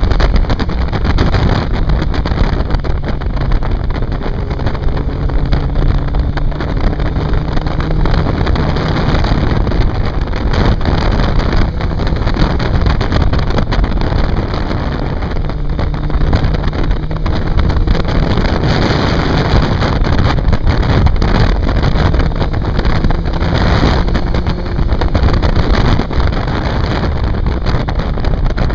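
A motorcycle engine running under way, its note rising and falling with the throttle through the bends, under heavy wind noise buffeting the microphone.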